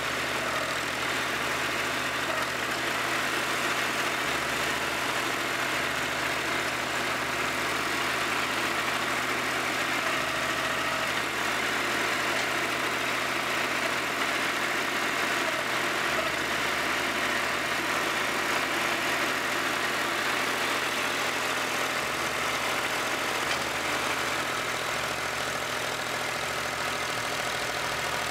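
Terraplane TD38 (Dongfeng) tractor's diesel engine running steadily, heard from the operator's seat while the front loader is worked to dump and spread gravel.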